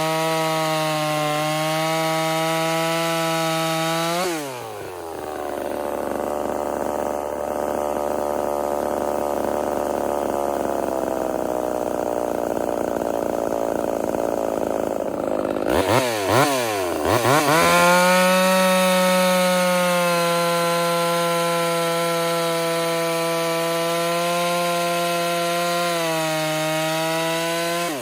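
Ported Homelite VI-130 two-stroke chainsaw running at full throttle while cutting a log. About four seconds in, the engine note drops sharply and stays low and strained for about eleven seconds, as under heavy load in the cut. The revs then dip and climb several times before holding at their highest and easing down again near the end.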